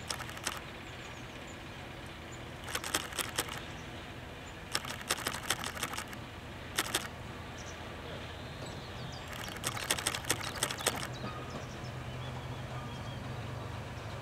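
Railway coaches rolling slowly along jointed track behind a Class 09 diesel shunter: wheels clicking over the rail joints in several quick clusters, over a steady low rumble that grows a little louder near the end.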